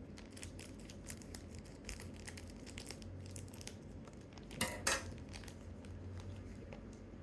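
Plastic packaging of small toy parts crinkling as it is opened by hand, with a rapid run of crackles and then a short, louder burst of crinkling a little past the middle.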